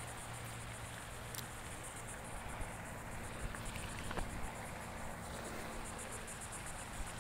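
Insects chirping in a fast, even, high-pitched pulse that never lets up, with a couple of faint clicks.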